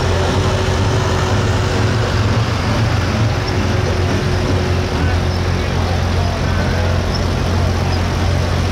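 Pulling tractor's diesel engine running steadily at low revs: an even, deep rumble with no revving.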